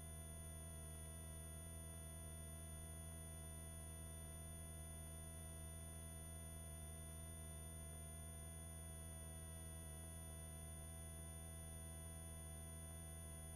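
Faint steady hum of the helicopter in flight as it comes through the headset intercom: several unchanging tones, with one middle tone wavering slightly.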